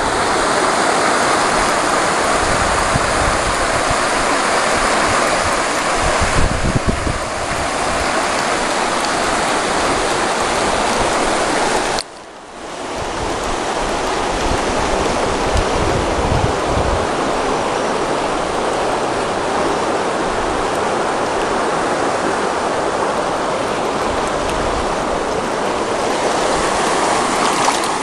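Rushing of a swollen, fast-flowing muddy river in flood: a steady, loud rush of water. About twelve seconds in the sound cuts out suddenly and swells back up over a second or two.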